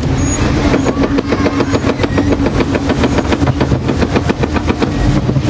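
Water-flume ride boat being carried up its chain-driven conveyor lift: a rapid, even clacking of about eight clicks a second over a steady motor hum.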